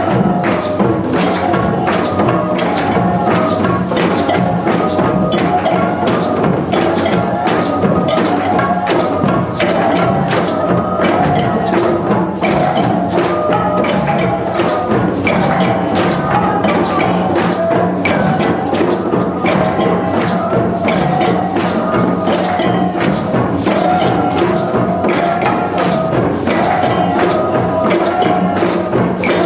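Music: a fast run of wooden percussion strikes over a steady low drone, with a wavering melody above it.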